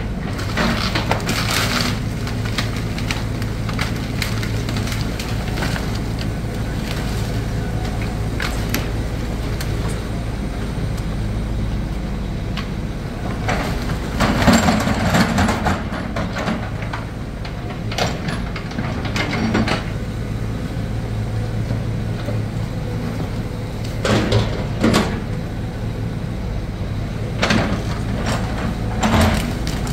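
Excavator's diesel engine running steadily as it tears down a wood-framed house, with bursts of cracking wood and crashing debris several times; the loudest crash comes about halfway through.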